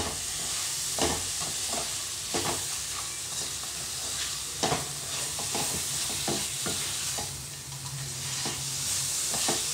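Wooden spatula stirring and scraping a banana, grated coconut and jaggery mixture around a nonstick kadai in irregular strokes, over a steady sizzle of the mixture frying in ghee as the jaggery melts.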